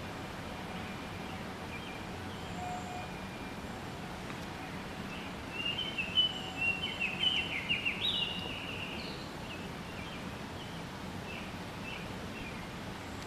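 Canada goose goslings peeping: a run of high, quick chirps in the middle, over a steady outdoor hiss.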